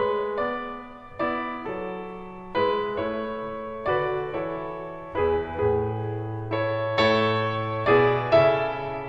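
Background piano music: a slow, gentle melody over chords, each note struck and fading away.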